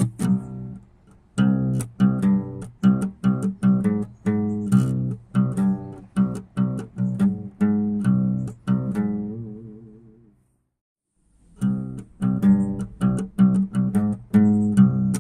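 Background music of plucked guitar notes in a steady rhythm; it fades out about ten seconds in, stops briefly, then starts again.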